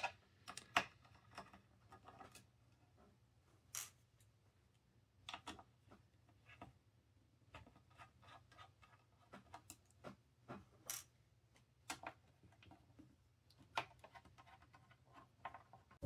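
Faint, scattered small clicks and ticks as a precision screwdriver turns out the screws of a small metal mini-PC case and fingers handle the screws.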